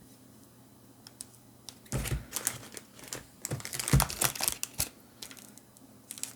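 Foil booster-pack wrapper crinkling, with small clicks and taps, as the packs are handled and moved, in a cluster of crinkles and knocks from about two to five seconds in.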